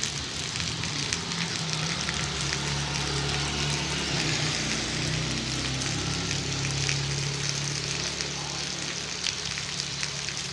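Steady rain falling, a dense hiss with fine pattering drops. A low hum runs beneath it, strongest from about two to seven seconds in.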